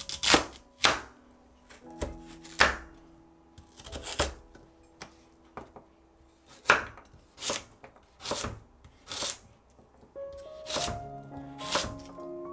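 Kitchen knife cutting through a very firm Korean radish and knocking on a wooden cutting board: about ten sharp cuts at an uneven pace, with a longer pause midway. Soft background music plays underneath.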